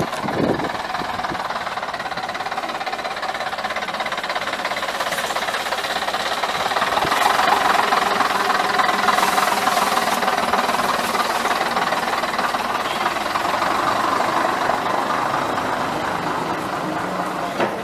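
Diesel engine of a London Transport RT double-deck bus (AEC Regent III) running close by with a steady diesel clatter. It grows louder for a few seconds about midway, then slowly eases. A short knock right at the start.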